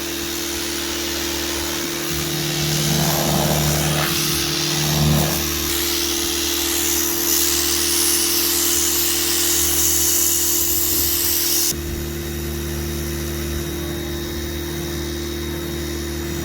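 Pressure washer running with a steady motor and pump hum, its water jet hissing against the cast-metal stove parts as it blasts off ash and loose paint. The spray hiss stops suddenly a little before the end, the motor's hum carrying on.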